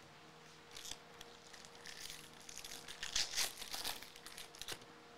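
Foil wrapper of a baseball card pack being torn and crinkled, a rustling crackle that is loudest about three seconds in.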